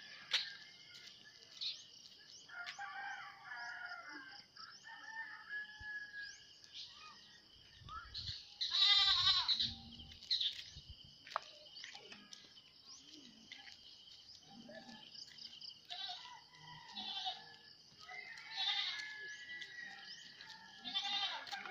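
Goats bleating now and then, with the loudest wavering call about nine seconds in, over a steady high-pitched drone.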